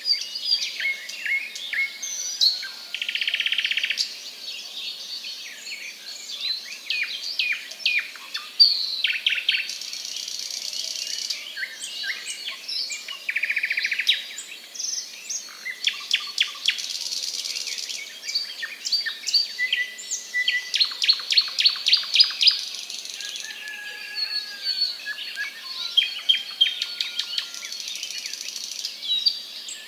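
Birds chirping and calling: many short high chirps, quick down-slurred notes and fast trills that overlap one another, with a few brief buzzy notes.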